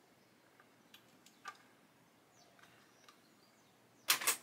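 Faint clicks and taps of clamps and plastic model-kit parts being handled, then a short, louder double rattle near the end.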